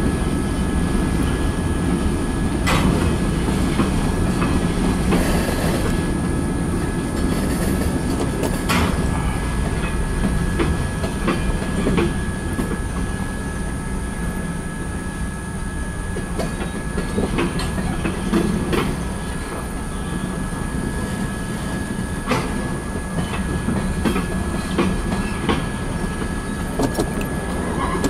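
Freight train cars, covered hoppers and tank cars, rolling past with a steady rumble of steel wheels on the rails. Scattered clicks and clanks run through it as the wheels cross rail joints.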